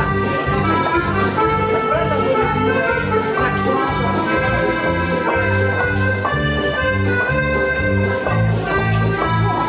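Accordion dance music with a steady, pulsing bass beat.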